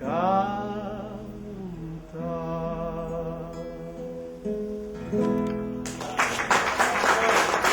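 A singer holds the last word of a song on a long note that slides and wavers, over acoustic guitar accompaniment. The guitar plays on with sustained notes, and about six seconds in a loud rush of noise covers the music.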